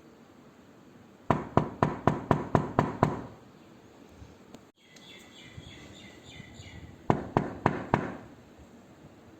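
Knocking on a door: a quick, even run of about eight knocks, then after a pause about four more.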